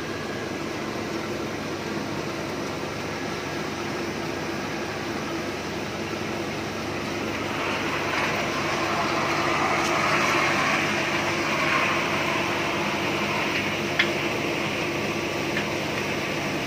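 Electric rice-milling machinery running steadily, a continuous mechanical whir and hum that grows a little louder in the middle, with one sharp click about 14 seconds in.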